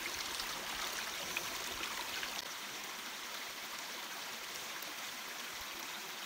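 Shallow stream running over stones, with light splashing from hands swishing and rinsing in the water during the first couple of seconds.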